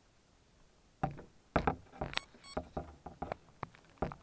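Handling noise: a run of irregular sharp clicks and knocks from hands gripping and moving the camera and the RC gear, starting about a second in.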